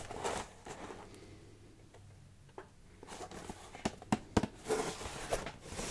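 Hands handling a cardboard box: quiet at first, then from about halfway a run of sharp taps and short scrapes of fingers on the cardboard.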